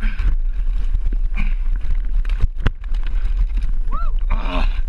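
Wind rumbling steadily on the action camera's microphone, with sharp knocks as the camera is moved about in the boat near the middle, and a short rising-and-falling cry about four seconds in.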